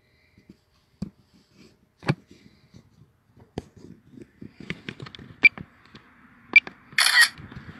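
Light taps and clicks of a phone being handled, a few at first and coming faster after about four and a half seconds, then a short shutter-like sound about seven seconds in as the DJI Fly app takes a photo.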